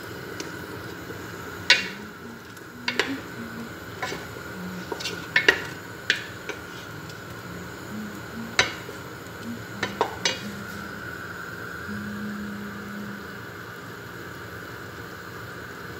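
A wooden spoon stirring a thick beef and tomato sauce in a stainless steel pot, knocking sharply against the pot several times at irregular moments in the first ten seconds, then stirring quietly.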